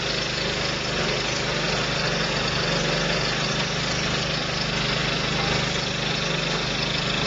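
V-Tex texture sprayer running steadily with a low, even hum, its hydraulic drive turning the pump in reverse to draw the new fluid tube back onto its fitting.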